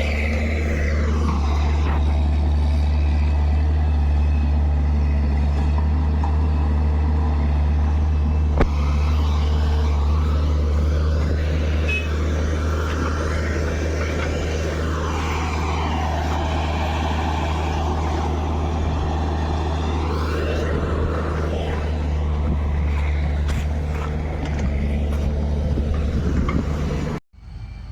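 Heavy diesel machinery engine running steadily with a deep drone. A higher whine falls and then rises again twice, and the sound cuts off abruptly near the end.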